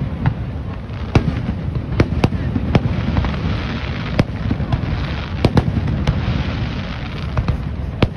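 Aerial firework shells bursting: an irregular run of about a dozen sharp bangs over a low rumble, with a dense fizzing crackle in the middle of the run.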